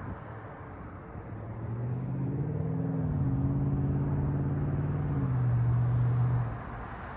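Exhaust of a 2018 Volkswagen Golf GTI (MK7.5) with its turbocharged 2.0-litre four-cylinder breathing through an aftermarket GTI TCR muffler. The engine note swells under throttle about a second and a half in, holds with a step or two in pitch, then drops off suddenly near the end.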